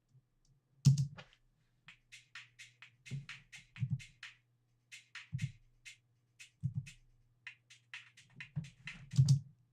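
Electronic 128 BPM drum loops being auditioned: kick drums and quick hi-hat patterns that start, stop and restart as one loop after another is previewed, over a faint low steady tone.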